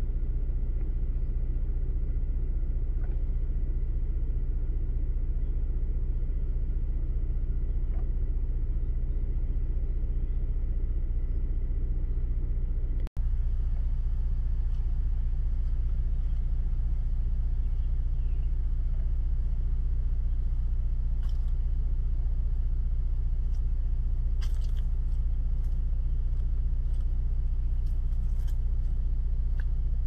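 Steady low background rumble, broken by a sudden cut about thirteen seconds in. A faint steady high whine runs through the first part, and a few brief faint clicks or chirps come in the second half.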